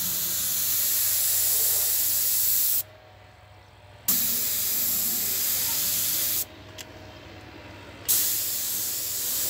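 Small air spray gun spraying primer with a steady hiss, released twice for a second or more (about three seconds in and again about six and a half seconds in) before spraying resumes each time.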